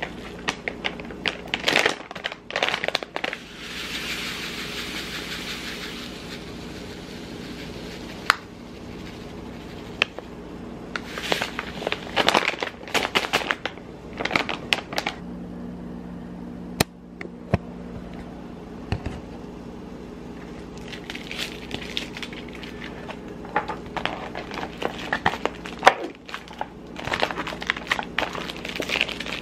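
Plastic stand-up pouch of chia seeds crinkling and rustling as it is handled, opened and poured. Sharp clicks and light knocks of things set on the countertop come in between, over a faint steady hum.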